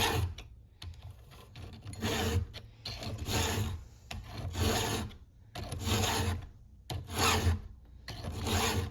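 Stihl 2-in-1 chainsaw file guide rasping across a saw chain's cutters in about seven separate strokes, roughly one a second. Its round file sharpens each cutter while its flat file takes down the depth-gauge rakers in the same pass.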